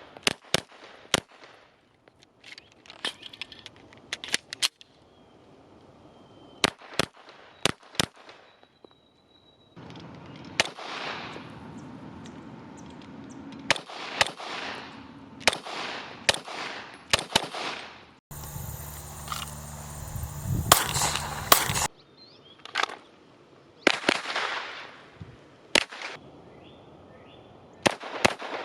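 Glock 17L 9mm pistol firing repeated strings of quick shots, several shots a second, with short pauses between strings.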